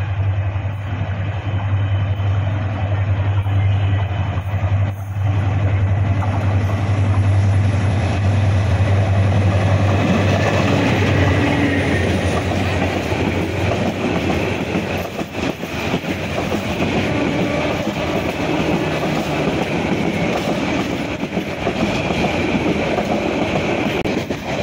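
Bangladesh Railway intercity passenger train passing close by. A low, steady diesel locomotive drone fills roughly the first ten seconds, then the coaches roll past with their wheels clattering over the rails.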